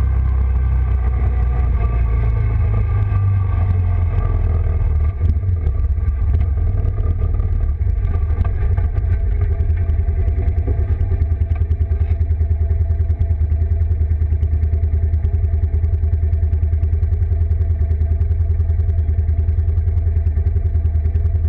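Red ATV's engine running while riding over grass, then settling to an even, rapidly throbbing idle about halfway through once the quad has stopped.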